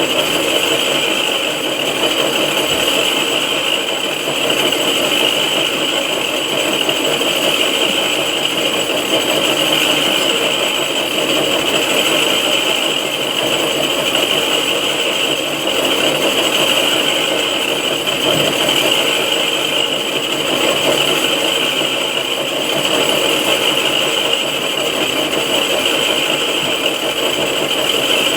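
6R12 vertical knee-type milling machine running steadily while face-milling a cylinder head.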